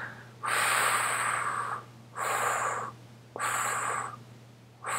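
A man breathing loudly and heavily, four long noisy breaths in a row, the first the longest.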